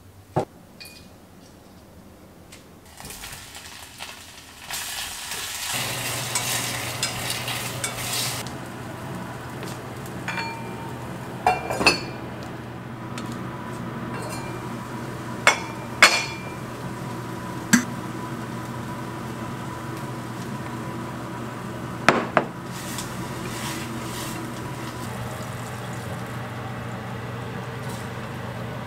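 Scallions sizzling in hot oil in a small saucepan on a gas stove, with stirring. The sizzle builds a few seconds in and is loudest soon after. Several sharp clinks of a utensil or the lid against the pot come through the rest, over a low steady hum.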